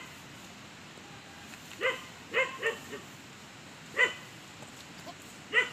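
A dog barking: about five short barks at irregular intervals, two of them in quick succession.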